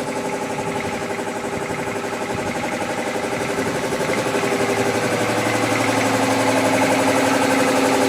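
3 HP piston air compressor running, a steady rapid pulsing chug that grows gradually louder, with a lower hum joining in about two-thirds of the way through.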